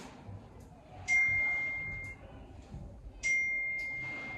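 Two bright dings about two seconds apart, each starting sharply and ringing on at one steady high pitch as it slowly fades.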